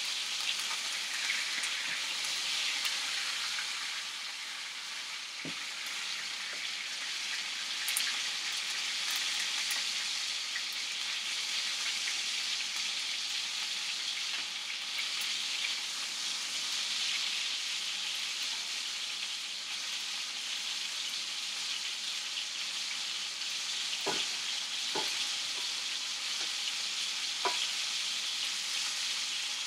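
Chicken thighs frying in a pan of hot butter, bacon fat and oil, a steady high sizzle. A few light clicks sound over it, mostly near the end.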